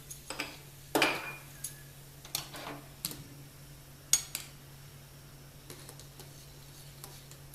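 Kitchen utensils clinking and knocking against a cooking pot: several sharp clinks in the first four and a half seconds, the loudest about a second in with a brief ring.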